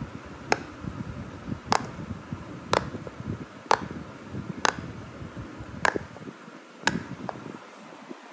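Silicone pop it fidget toy having its bubbles pressed one by one by fingertips: a sharp pop about once a second, eight in all, the last one fainter, with soft handling rustle between.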